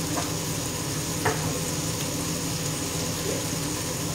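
Octopus, diced zucchini and cherry tomatoes sizzling in a frying pan, a steady hiss with a low hum underneath. Two light clicks come in the first second and a half.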